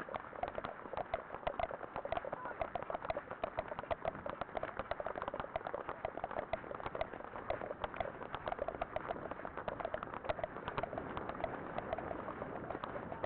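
Hoofbeats of a ridden horse on wet beach sand: a quick, steady rhythm of dull strikes.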